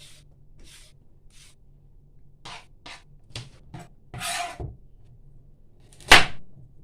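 Hand peeler scraping the skin off a carrot in a run of short strokes, about one every second at first, then quicker, with a longer stroke after about four seconds. A louder sharp knock comes near the end.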